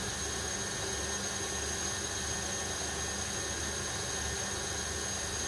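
Electric stand mixer running steadily, beating the eggs and sugar for a sponge-type cake batter: an even whir with a thin high whine over a low hum.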